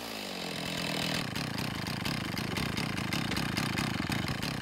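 Two-stroke chainsaw mounted on a chainsaw mill, idling steadily with the throttle released at the end of a cut.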